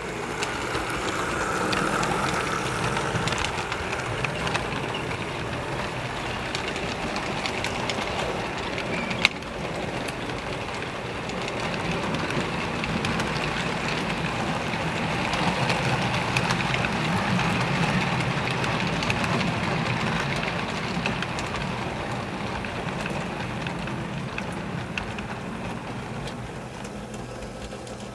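Model freight train of hopper cars rolling along layout track: a steady rumble and clatter of small wheels on the rails that swells and eases, with a single sharp click about nine seconds in.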